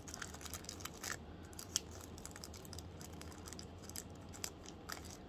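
A small plastic bead packet being handled and opened by fingers with long nails: soft crinkling with scattered small clicks and a couple of sharper ticks, as a ceramic bead is got out.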